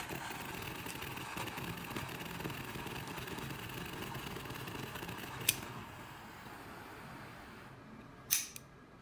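Jet-flame torch lighter burning with a faint, steady hiss that tapers off from about five and a half seconds in. There is a light click about five and a half seconds in and a sharper click near the end.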